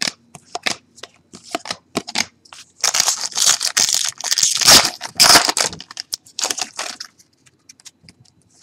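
Wrapper of a football trading-card pack being torn open and crinkled by hand, with a dense spell of rustling about halfway through and a few small clicks of card handling near the end.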